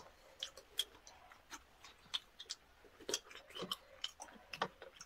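Faint chewing while eating spicy braised chicken, heard as small scattered mouth clicks.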